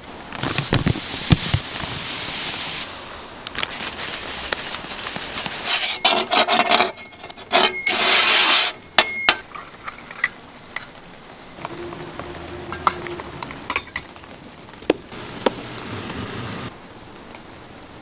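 A run of dalgona-making handling sounds: sugar rustling and pouring, a wooden stick scraping and stirring sugar in a small metal ladle, and scattered taps and clinks of metal utensils. There are two longer hissing, rustling stretches, near the start and about halfway through.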